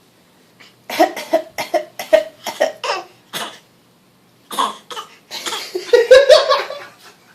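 A young girl fake coughing on purpose: a quick run of short, sharp coughs starting about a second in, then after a brief pause a longer, more voiced burst near the end.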